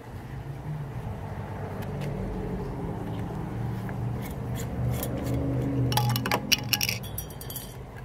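Metal screw lid being twisted off a glass mason jar: a run of sharp clinks and scrapes of metal on glass, thickest near the end, over a low steady hum.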